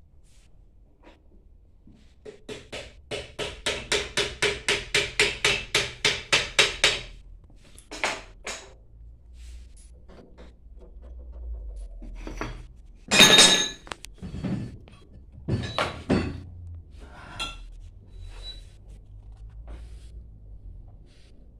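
Hammer blows on metal during a booster pump repair: a fast run of about four taps a second that grows louder, then scattered knocks, with one loud ringing metallic clank about halfway through. The blows are typical of driving a part into place on the pump shaft.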